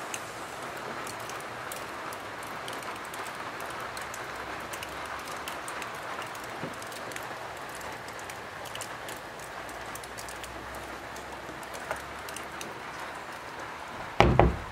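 Steady rain falling, with many scattered drop ticks. Near the end a wooden door is pulled shut with a brief loud knock and thump.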